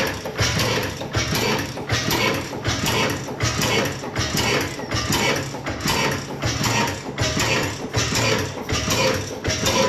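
1912 Hornsby 7.5hp single-cylinder hot-bulb oil engine running on kerosene, beating out a steady rhythmic clatter of about two beats a second from its firing and valve gear.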